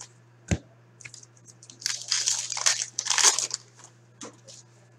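Trading-card pack wrapper crinkling and tearing as it is opened, a dense crackle lasting about two seconds in the middle. A single knock about half a second in, as cards are set down.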